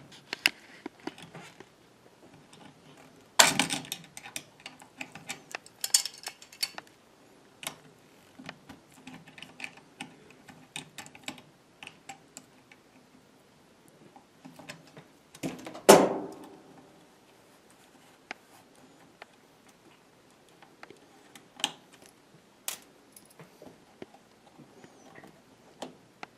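Small clicks, taps and scrapes of hands and a screwdriver working at a Dell Latitude E6330 laptop's plastic case, with two loud knocks, one about three and a half seconds in and a louder one about sixteen seconds in.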